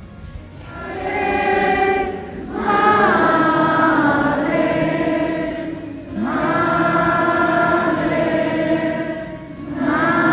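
A church choir or congregation singing a hymn in long, held phrases, with brief pauses between phrases about every three to four seconds.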